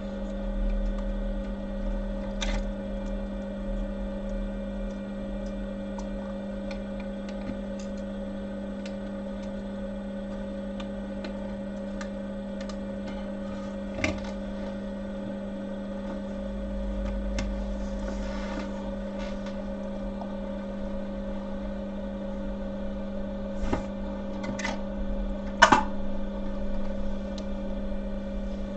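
A steady electrical hum with a few small clicks and taps, the loudest about three seconds before the end.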